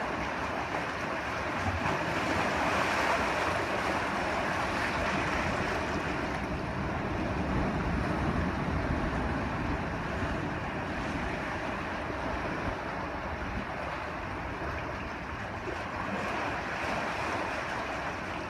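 Ocean surf washing in over rocks at the mouth of a sea cave: a steady rushing wash that swells louder about three seconds in and again near eight seconds, then eases.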